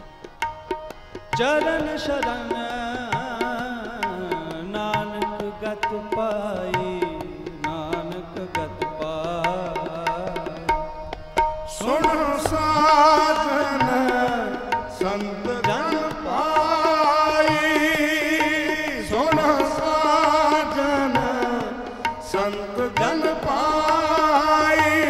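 Sikh Gurbani kirtan: tabla strokes under harmonium and a male voice singing long, wavering, ornamented notes. The first second is quieter; voice and harmonium swell in about a second in.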